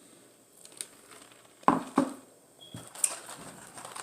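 Close-up eating sounds: a few sharp crunches and clicks from chewing and handling food, the loudest pair about two seconds in.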